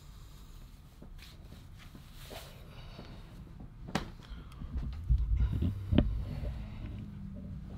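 Low, dull heartbeat-like throbbing, heaviest about five to six seconds in, with a couple of sharp clicks. A steady low hum comes in near the end.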